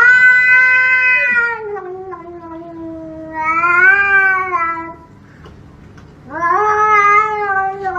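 Cat yowling in long, drawn-out meows, three of them, each sliding slowly down and back up in pitch.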